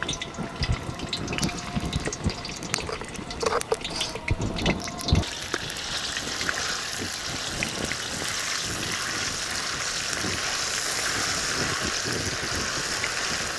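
Ginger-garlic paste sizzling in hot oil in a wok. For the first five seconds there are crackles and a few knocks of a spoon on the pan, then the frying settles into a steady, even hiss.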